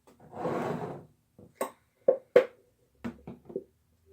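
A plastic glue bottle being squeezed, giving a short spluttering hiss of air and glue for about a second, followed by several light knocks and clicks.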